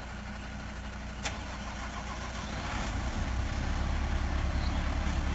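Heavy tanker truck's engine running with a steady low drone, growing louder about halfway through as the truck is worked around the turn. One short sharp click about a second in.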